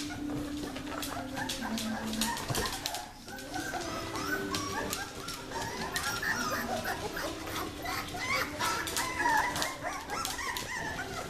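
A litter of young puppies whining and yipping in many short, squeaky calls that overlap, busier in the second half, with rapid clicking of claws on a tile floor.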